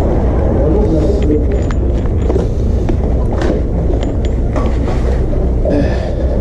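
Wind rumbling over the microphone with road and tyre noise while riding an electric scooter, with scattered short rattling clicks.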